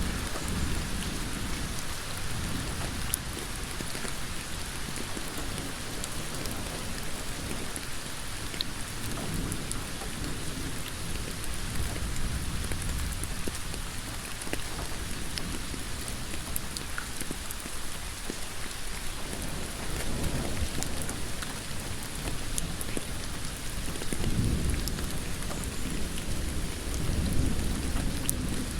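Heavy rain falling steadily on a road: a dense, even hiss with scattered drop clicks. Low rumbling swells rise and fade several times.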